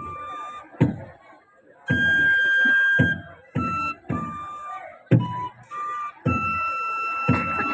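Flute ensemble playing a slow melody of long held notes and a few short ones, with a drum beat at the start of each note.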